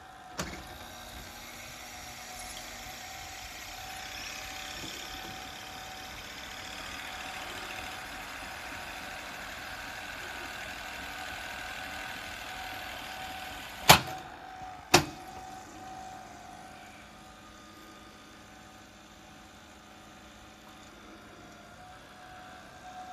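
Toshiba GV-201C open-reel video tape recorder rewinding, a steady whir of reels and tape, then two sharp clicks about a second apart as the transport is stopped and switched to play, after which the machine runs more quietly.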